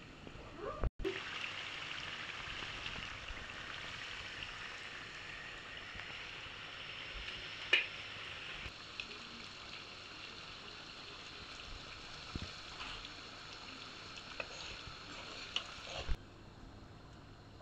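A steady kitchen hiss, with a few sharp clicks of utensils. It cuts off with a clatter about sixteen seconds in.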